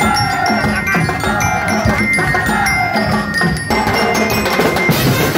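Percussion band playing a fast drum rhythm on many drums, from large frame-mounted drums to tall tubular drums. Over the strikes run a steady high tone and a tone that falls in pitch about once a second. This falling tone stops about three-quarters of the way through, and the drumming gets denser.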